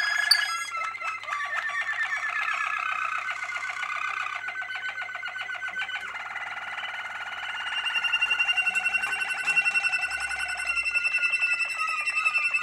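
Domestic canary singing: long runs of fast trills, shifting about halfway through to a sustained, wavering held note, then back to rapid trills near the end.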